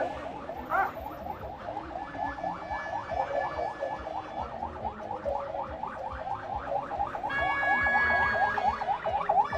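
Electronic siren in a rapid yelp: quick rising pitch sweeps repeating about five times a second, growing louder for a couple of seconds near the end.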